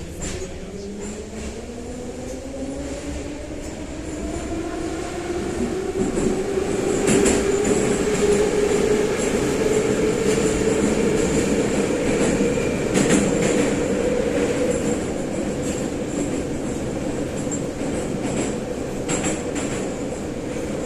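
Metro car of the St Petersburg-built 81-717/714 'numbered' type accelerating, heard from inside: the traction-motor whine rises steadily in pitch over about eight seconds, then settles into steady running with wheel and track noise. Brief knocks come about every six seconds.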